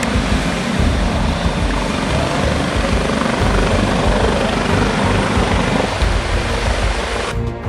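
Coast Guard MH-65 Dolphin helicopter flying close: loud, steady main-rotor and turbine noise with a heavy low rush.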